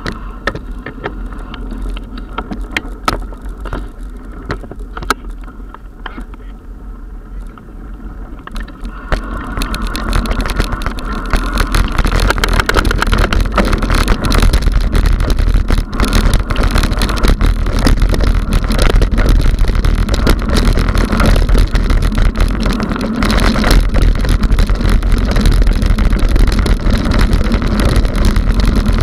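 Mountain bike riding, heard from a camera mounted on the bike: tyres and frame rattling and wind on the microphone. Moderate with scattered clicks and knocks at first, then a loud, steady rumble from about nine seconds in as the bike runs fast over a dirt and gravel trail.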